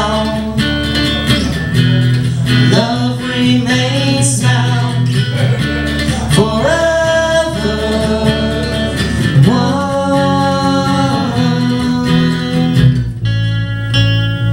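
Live acoustic band, with guitar and bass under a voice singing long held notes that scoop up into each one. Near the end the singing stops and the guitar carries on.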